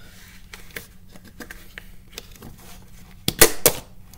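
Plastic tub lid snapping loose as it is pried off, a quick cluster of sharp clicks near the end, after light clicks and taps from handling the plastic scoop and tub.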